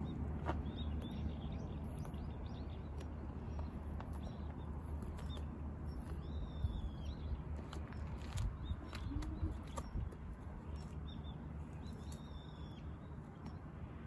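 Small birds chirping and calling now and then over a steady low rumble, with a few scattered light clicks.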